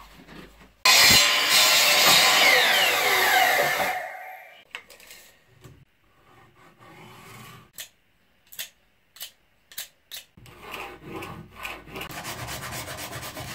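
A Bosch mitre saw cutting a wooden board about a second in, loud for about three seconds, its blade then spinning down in a falling whine. A few light taps follow, and near the end a pencil scratches steadily across the wood as the board is marked out.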